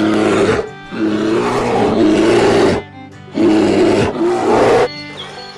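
Tiger roaring three times: a short roar, then two longer ones each lasting a second and a half or more, with background music underneath.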